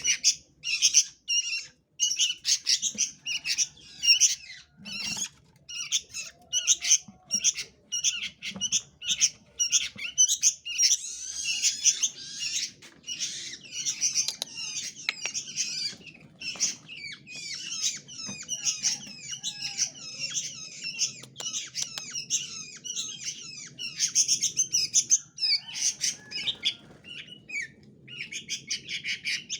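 Small songbirds calling in a rapid, dense run of short repeated chirps, with a couple of brief pauses.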